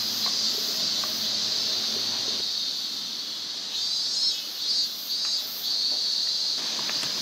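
Hot garlic oil in a camp frying pan sizzling and hissing as boiled spaghetti is lifted in from the pasta pot, over a steady high drone of cicadas.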